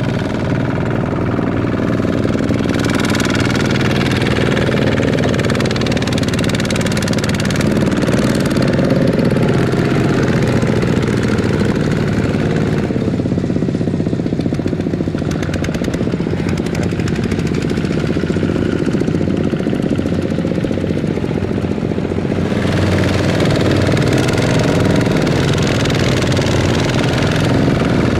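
Single-cylinder diesel engine of a two-wheel walking tractor running loudly and steadily under load as it hauls a loaded trailer through a muddy rice paddy. Its sound eases for a few seconds around the middle, then picks up again toward the end.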